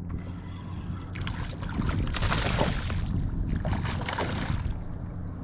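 A hooked bonefish thrashing and splashing at the water's surface beside the kayak. The splashing is irregular, starting about a second in and easing off near the end.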